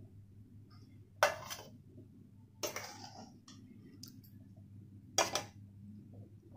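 A metal ladle knocks against the aluminium kadai and the steel plate as boiled shark pieces are lifted out and set down: three light clinks several seconds apart over a faint steady hum.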